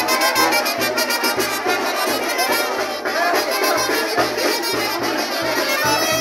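Brass band music: trumpets and trombones playing over a steady, pulsing bass beat.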